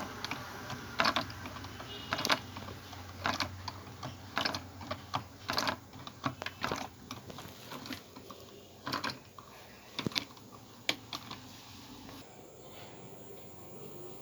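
Irregular sharp clicks and knocks, about one or two a second, from a hand-worked wave-energy model as the water is pushed to make waves and the float-and-lever mechanism moves. They thin out and stop near the end.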